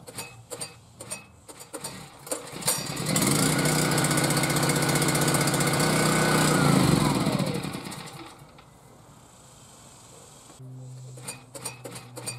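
Westinghouse WGen5300v portable generator's gasoline engine catching on a pull-start about three seconds in and running steadily for about four seconds. It then slows with falling pitch and dies.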